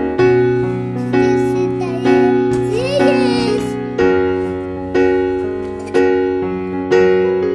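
Background music on piano or electric piano: chords struck about once a second, with a short sliding melodic sound about three seconds in.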